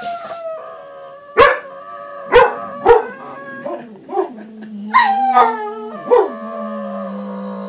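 Dogs howling along to a warning siren's monthly test, long wavering howls broken by about five sharp barks.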